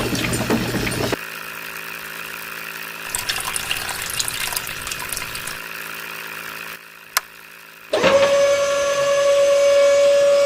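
Short bursts of workshop noise, broken by abrupt cuts and a single click. About eight seconds in, a small electric motor switches on, quickly settles, and runs with a steady whine.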